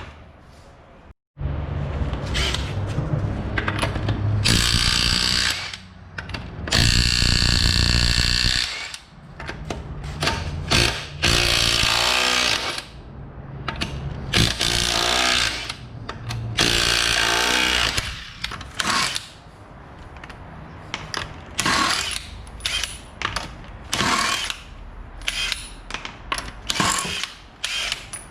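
Impact wrench running in bursts on the car's front suspension fasteners: several hammering runs of a second or two, then a string of short blips near the end.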